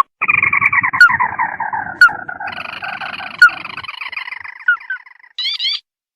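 Recorded lure call of a tikusan crake: a long, loud, chattering trill that slides slowly down in pitch, ending in a burst of quick upslurred notes near the end.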